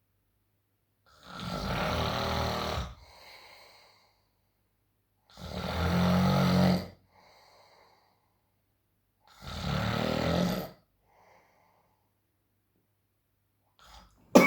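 A person snoring heavily: three long, loud snores about four seconds apart, each followed by a fainter breath out. A short, sharp sound comes right at the end.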